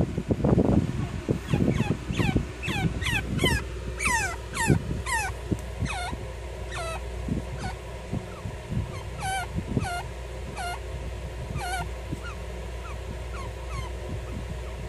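Baby chinchillas calling with a long series of short, high squeaks, each sliding down steeply in pitch, repeated irregularly. Scrabbling and light bumps against a plastic hideout come in the first few seconds.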